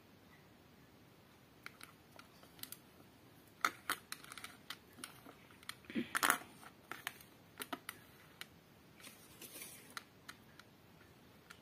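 Small plastic LEGO pieces clicking and tapping as they are handled and set down on a tabletop: scattered light clicks, with a cluster of louder knocks about six seconds in and a brief scuffing sound near the end.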